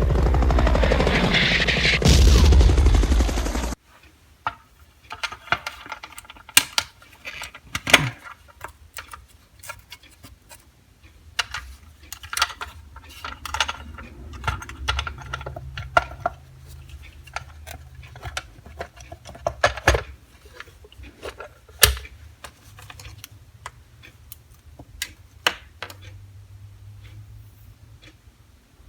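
A loud rushing noise that cuts off abruptly about four seconds in, followed by scattered sharp clicks and light knocks as a TS-297/U military multimeter is handled and worked on at the bench.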